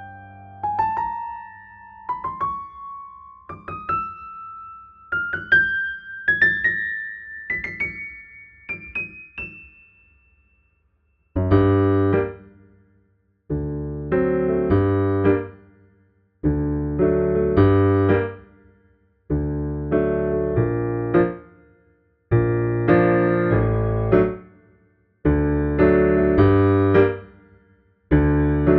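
Piano music: a melody of single struck notes climbing step by step, then after a short pause, full chords struck again and again about every three seconds.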